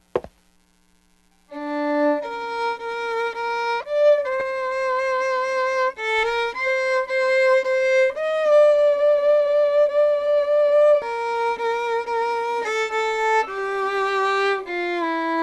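Solo violin playing a slow melody of long held notes with a slight vibrato, starting after about a second and a half of silence.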